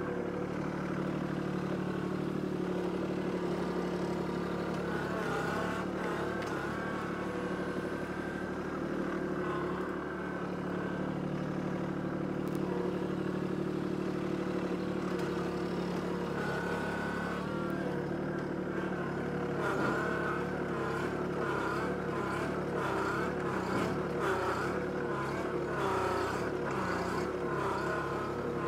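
Kubota B2261 compact tractor's three-cylinder diesel engine running steadily under load as the front loader works a stump-ripping implement through the roots. From about halfway on, a wavering whine rises and falls over the engine note.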